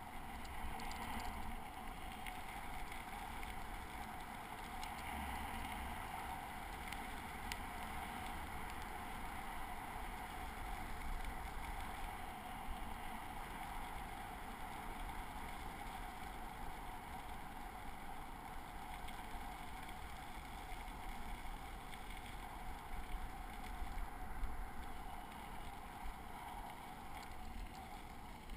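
Steady rolling noise of a bicycle riding along a paved trail, with wind rumble on the microphone and a few faint clicks.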